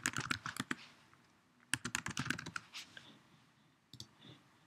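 Typing on a computer keyboard in two quick runs of keystrokes, one at the start and one a little under two seconds in, followed by a single click near the end.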